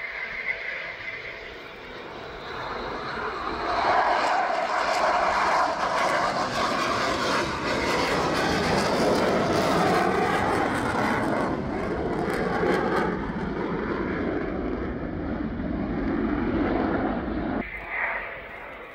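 Aircraft flying past, its engine noise building over a few seconds, staying loud for over ten seconds, then falling away sharply near the end.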